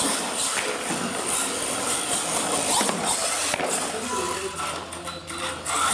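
Indistinct chatter from spectators in a large hall, with the whine of an RC monster truck's motor rising and falling a few times as it drives.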